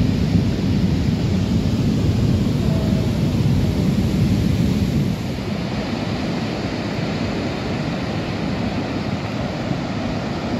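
Steady low rumble and rush of a muddy river in full flood, a little quieter from about five seconds in.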